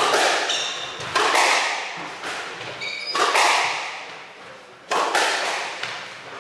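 Squash ball knocking off rackets and the court walls in a rally, sharp knocks about once a second with a long hall echo and a pause around four seconds in. Two short squeaks of court shoes on the wooden floor, about half a second and three seconds in.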